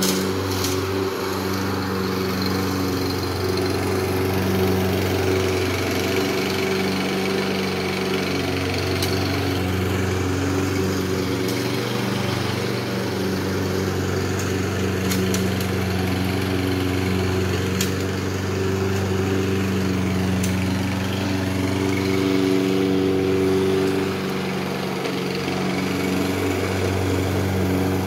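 Walk-behind gas lawn mower engine running steadily as the mower is pushed across grass, with a few brief sharp clicks now and then.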